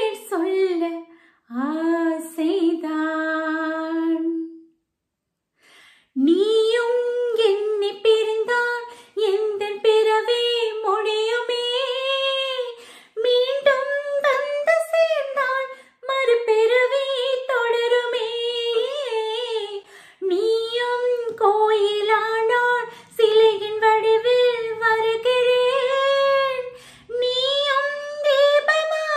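A woman singing a slow song solo with no instruments, in phrases of long held notes. She breaks off briefly about four and a half seconds in, then carries on.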